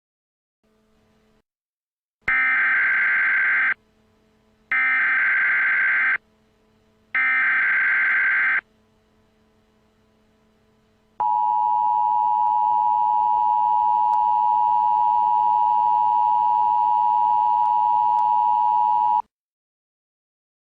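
Emergency Alert System activation tones: three short bursts of buzzing digital header data, each about a second and a half long, then the steady two-tone EAS attention signal held for about eight seconds.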